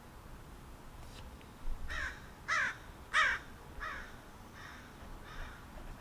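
A bird outdoors calling a run of about six short, pitched calls, roughly one every two-thirds of a second; the calls grow louder toward the middle and then fade.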